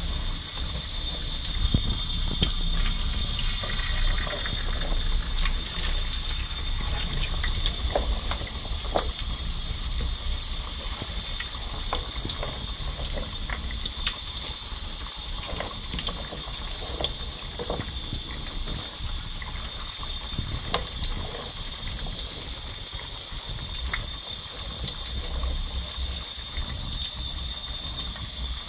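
Potatoes deep-frying in hot fat in a plow-disc cooker: a steady sizzle with scattered crackles and pops from the bubbling oil.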